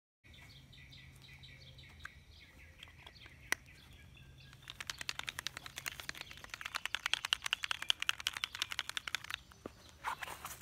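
Faint outdoor bird calls, with a fast, even run of clicking chirps lasting several seconds in the middle.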